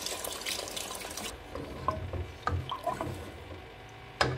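Water poured in a stream into a pot of potatoes and peas in masala, splashing, stopping suddenly about a second in. Then a wooden spoon stirs the watery curry with small clicks, and there is a sharp knock near the end.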